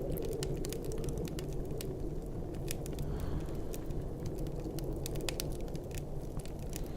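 Wood fire crackling in a fireplace, with scattered sharp pops, over a steady low rumble of snowstorm wind.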